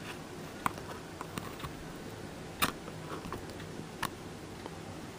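A few scattered light clicks and knocks, about four in five seconds, from a handheld camera being handled and set in place, over a faint steady background hum.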